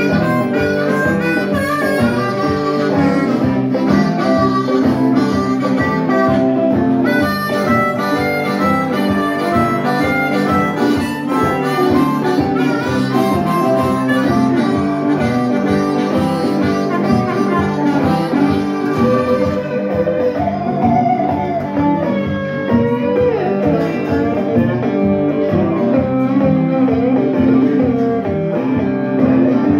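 Live blues band playing: a harmonica played into a handheld microphone, over acoustic and electric guitars.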